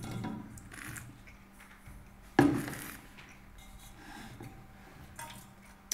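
Wine glasses and a stainless-steel spit bucket handled on a wooden table, with one loud knock about two and a half seconds in as the bucket is set down.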